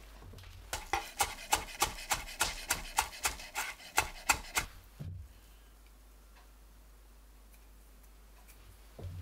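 Chef's knife chopping chives on a wooden cutting board: a run of quick, even chops, about four a second for about four seconds, followed by one lower knock.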